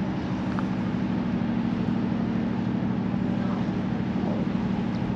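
Steady low drone of a ship's engines running in port, one constant hum that holds its pitch throughout.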